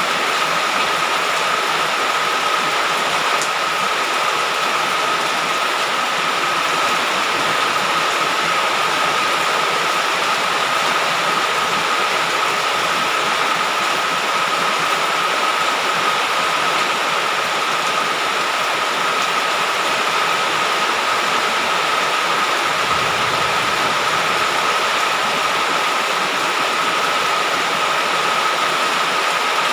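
Heavy rain falling steadily: an even, unbroken hiss, with a faint steady high tone running through it.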